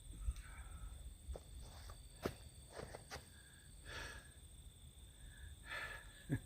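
Faint handling noises: scattered sharp clicks and short rustles, with a soft breath or two.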